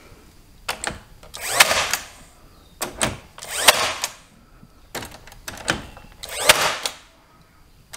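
Craftsman 20V cordless 18-gauge brad nailer firing brads into drywall and molding, about three shots roughly two seconds apart, each a sharp click with a short burst of motor and driving noise.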